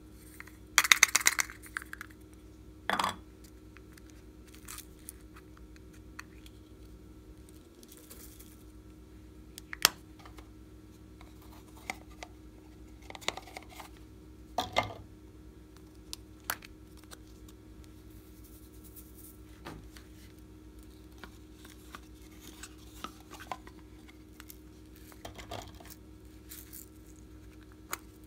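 Small plastic slime and glitter containers being handled and opened: scattered clicks, taps and short rattles, the loudest a rattling burst about a second in, over a faint steady hum.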